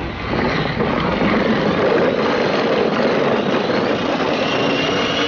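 Plastic ride-on toy rolling steadily across a hard floor, its wheels making a continuous rumble.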